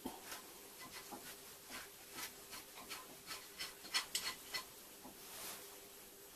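Faint, irregular light taps and rubbing as the steel plates of a home-built sheet metal folder are handled, over a low steady hum. The taps are loudest a little past halfway.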